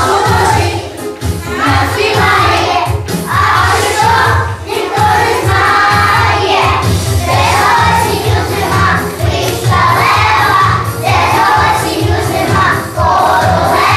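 A group of young children singing together over a recorded backing track with a steady bass beat.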